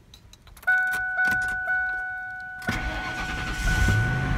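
Ford F-150 pickup being started. A steady dash warning chime comes on under a second in, and the starter cranks from just past the middle. The engine catches about a second later, revs up briefly and settles into a steady idle, a successful start on a truck that is due for a new starter solenoid.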